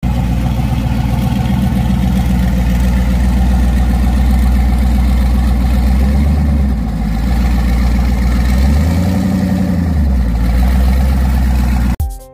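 Mid-1970s Chevrolet Caprice convertible's V8 engine running with a loud, deep exhaust as the car creeps forward. The engine revs up once about nine seconds in and settles back. The sound cuts off suddenly near the end.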